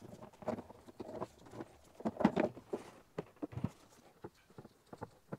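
Irregular knocks, clicks and scrapes of a fuel pump assembly being fed back into its fuel tank, the loudest cluster about two seconds in.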